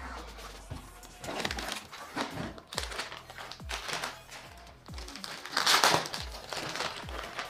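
Plastic wrapping crinkling and cardboard rustling as a bike box's flaps are opened and a plastic-wrapped booklet is pulled out and handled, with the loudest crinkle about six seconds in. Background music with a steady beat plays underneath.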